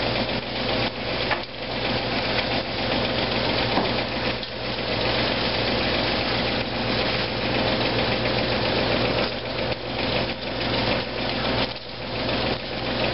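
Battered green tomato slices sizzling steadily in hot oil in a cast iron skillet, over the steady hum of a fan running on low.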